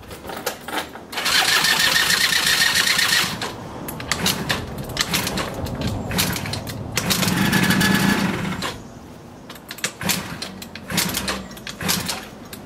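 Yamaha Jog CG50 moped's 50cc two-stroke engine being kick-started: twice it spins over in a loud whirring spell, about a second in and again about seven seconds in, with clicks and knocks between, and it does not start. It is a hard-starting engine that will hardly fire.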